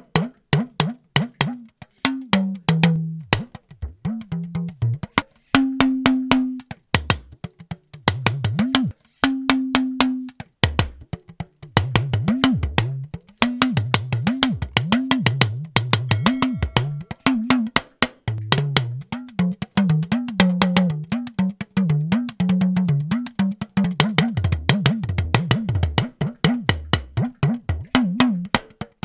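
Talking drum played in a fast rhythmic pattern: rapid strikes whose pitch bends up and down as the drum's tension is squeezed. Twice, a few seconds in, a longer note is held at a higher pitch.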